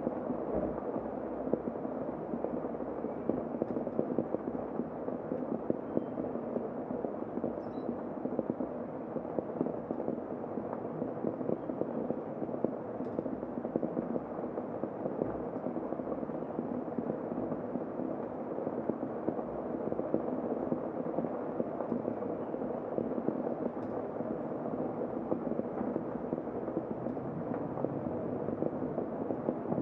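Heavy rain falling, heard from inside a room: a steady, dense hiss of drops.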